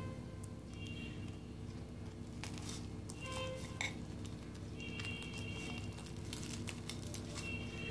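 A table knife cutting through a crisp-fried breaded potato ball on a ceramic plate, with scattered clicks and scrapes of the blade against the plate.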